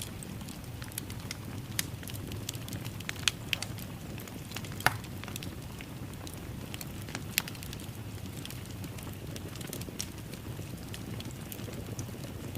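Wood fire crackling in a fireplace: a steady low rumble of flames with irregular sharp pops and snaps, a few of them louder.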